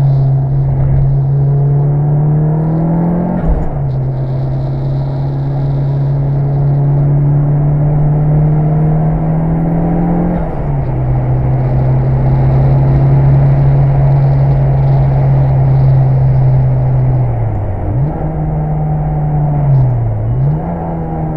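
Mitsubishi Lancer Evolution VI Tommi Makinen Edition's turbocharged four-cylinder engine under hard acceleration, climbing in pitch and dropping sharply at two upshifts, about three and a half and ten and a half seconds in. It then runs at a steady pitch, with two brief dips near the end as the throttle is lifted.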